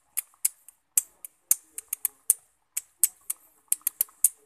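Chicken soup boiling hard in a pan under a glass lid: irregular sharp pops and clicks, about three a second.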